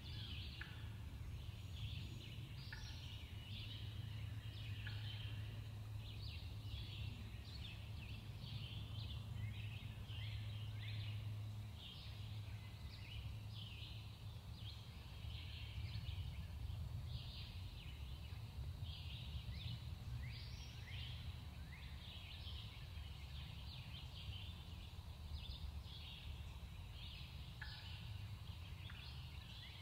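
Several songbirds singing at once: a steady stream of short, high chirps and trills overlapping, with a low steady hum underneath.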